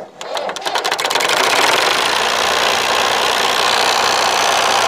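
Massey Ferguson 350 tractor's three-cylinder diesel engine cranked on its electric starter, catching within about a second and settling into a steady idle.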